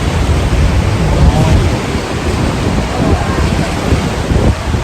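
Loud, steady roar of the Rhine Falls' rushing, churning water, with wind buffeting the microphone.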